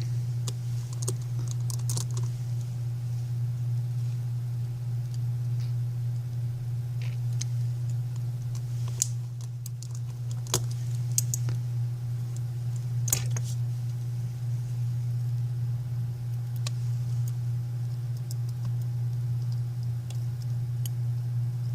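Scattered sharp clicks and light taps of small repair tools on an iPhone 5c's metal connector shields and screws as the phone is reassembled, over a steady low hum.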